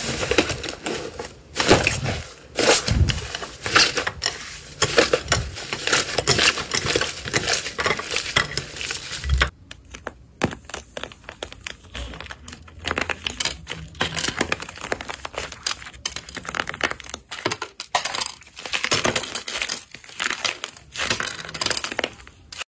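Inflated tofu-dreg slime under a crystal-slime skin, pressed and squeezed by hand, crackling with many small pops. About nine seconds in it gives way to a red clay heart with a dried, hard crust, cracked open and crushed by hand: the crust snaps and crunches into crumbs.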